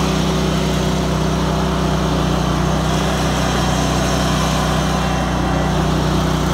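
Riding lawn mower's engine running steadily at an even speed while the mower is driven along.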